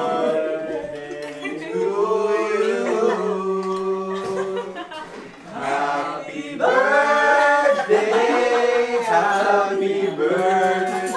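A small group of people singing together unaccompanied, holding long notes. The singing fades away about five seconds in and comes back louder a second or so later.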